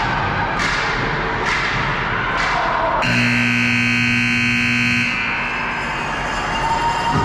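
Ice rink's scoreboard buzzer sounding once for about two seconds, a steady buzzing tone starting about three seconds in, over general rink noise.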